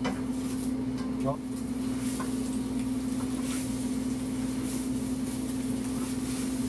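A steady low machine hum, as from a fan or appliance motor, with a brief faint sound about a second in.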